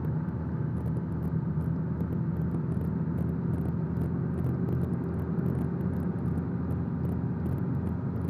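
Guimbal Cabri G2 helicopter running on the ground, its four-cylinder Lycoming piston engine and turning rotor making a steady low drone with a faint even pulse. This is the pre-takeoff run-up, just before the carburettor heat check, heard inside the cabin.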